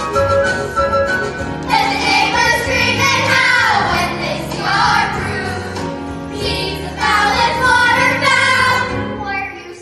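Children singing a musical theatre song together with instrumental accompaniment. The accompaniment plays alone for about the first second and a half, then the voices come in, ease off briefly in the middle, and return.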